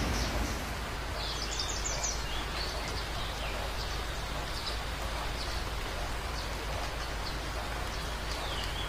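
Steady rain on the tent fabric, an even hiss with a few faint high chirps.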